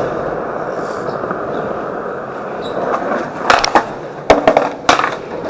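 Skateboard wheels rolling on pavement with a steady rumble, then several sharp clacks of the board about three and a half seconds in.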